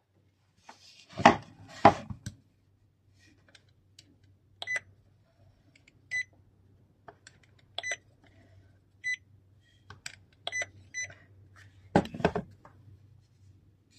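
Short, high electronic beeps from a DOERSUP Smart M20 handheld inkjet marker, about half a dozen spaced a second or so apart while it prints on a round part. Two loud handling knocks come about a second in and another near the end.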